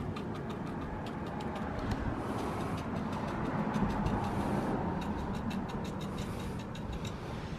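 A brush working rust converter onto a rusty steel computer case: many small ticks and several short hissing strokes, over a steady low rumble in the background.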